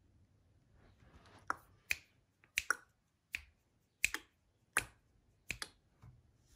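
A run of about ten short, sharp clicks over four seconds, starting about a second and a half in, several of them in quick pairs.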